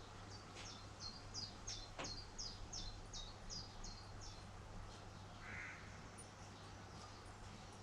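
A bird calling: a rapid series of about a dozen short, high, falling notes, about three a second, lasting some four seconds, over a steady low hum.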